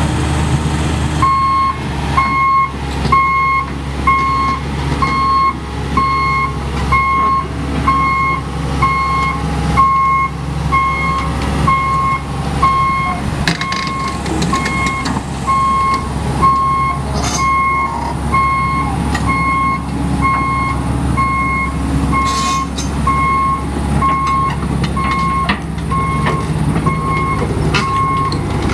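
Hitachi EX200LC-5 excavator's Isuzu six-cylinder diesel running, with a travel alarm beeping steadily about one and a half times a second from about a second in, the sign that the machine is tracking. A few sharp metallic clanks sound now and then.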